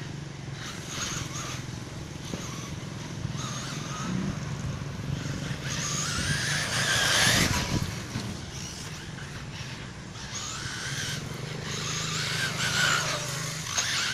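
SWorks S104 Evo 1/10 electric RC buggy running on a dirt track: its motor and drivetrain whine rises and falls as it accelerates and slows, loudest about seven seconds in.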